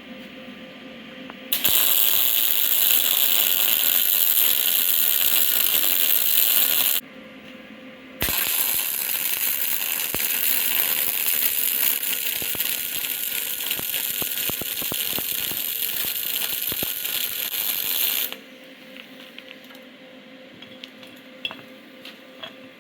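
Wire-feed welder laying two beads, about five and ten seconds long, with a short break between: a loud crackling sizzle with sharp pops of spatter. Reinforcing pieces are being welded onto the bent steel plate of a home-made liner puller.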